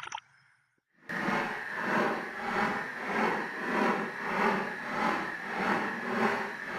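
A rhythmic rasping noise that starts about a second in after a brief silence, swelling and fading evenly about five times every three seconds.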